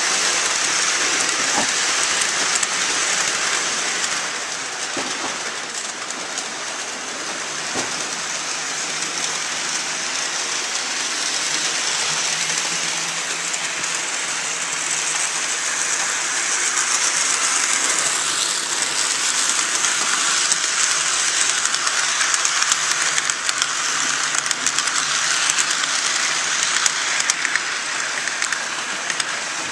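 HO scale model train running on the track, pulled by two double-headed model diesel locomotives: a steady whirring hiss of the motors and wheels on the rails, with a few faint clicks, dipping a little in level about five seconds in.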